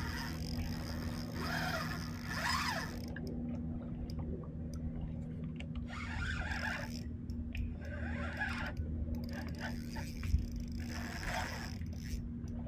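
Fishing reel being cranked in short spells while fighting a hooked bluefish, a scraping, grinding noise that comes and goes several times, over a steady low hum.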